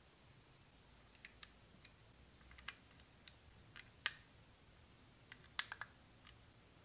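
Jie Star plastic building bricks clicking as pieces are handled and pressed together: a scatter of small sharp clicks, the loudest about four seconds in, then a quick cluster of three a little before the end.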